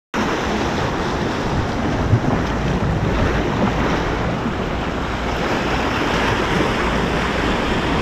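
Waves washing and splashing against the rocks of a jetty, with wind buffeting the microphone.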